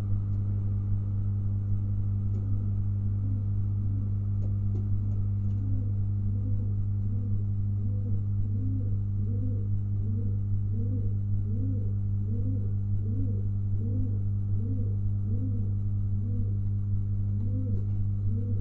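Domestic pigeon cooing: a regular series of low coos, each rising and falling, about one and a half a second, starting a couple of seconds in. Under it runs a loud, steady low electrical hum.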